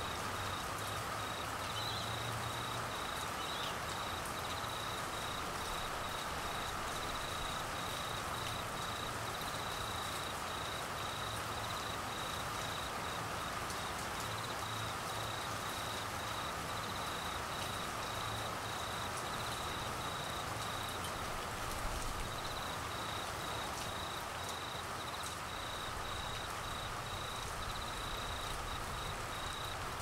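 Steady rain falling, with a high chirp pulsing rapidly over it that stops briefly about twenty-one seconds in and then resumes.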